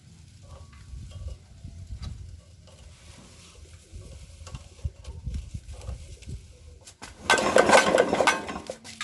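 Yanmar air-cooled diesel engine turned over slowly by hand, with irregular low knocks and clanks. About seven seconds in comes a loud hissing burst lasting over a second: the removed injector's nozzle tip spraying fuel into the open air. The spray is strong, a sign that the injector and fuel pump are working.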